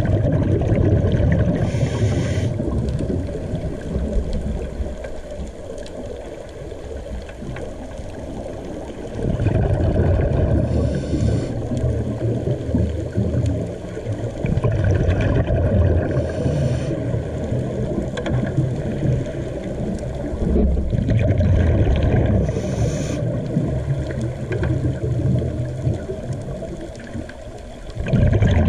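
Muffled underwater ambience heard through a dive camera's housing: a steady low rumble, with the hiss and gurgle of a scuba regulator's exhaled bubbles breaking in several times.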